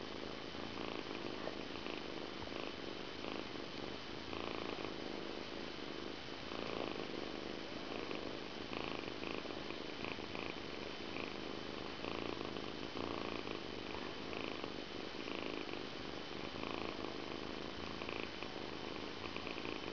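Persian kitten purring steadily.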